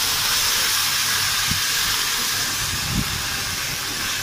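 Steady sizzling hiss from parotta frying on a hot griddle, with a soft knock about three seconds in.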